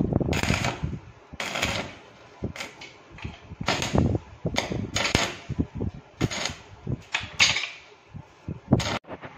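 Stick (MMA) welding arc crackling in a string of short, irregular bursts as the electrode is struck again and again to tack a corner joint of square steel tubing.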